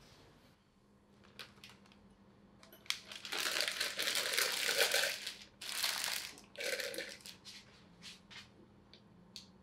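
Thin plastic piping bag crinkling as it is pushed into a glass jar and folded over the rim, in three long rustling spells from about three to seven seconds in, with a few single light crinkles or taps before and after.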